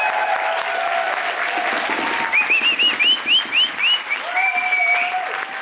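Audience applauding, with a run of about eight quick rising-falling whistled chirps about two seconds in and a long held cheer near the end.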